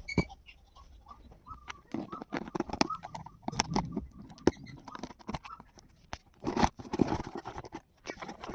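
Packaging being handled and opened by hand: irregular taps, clicks and rustling, with a longer burst of rustling a little past the middle.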